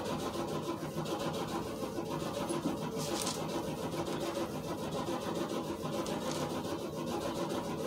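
Steady hum of a running motor, holding several fixed pitches, with a short scrape about three seconds in.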